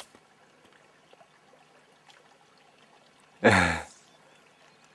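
Faint steady flow of a shallow river, with one loud, short burst about three and a half seconds in, lasting about half a second, close to the microphone.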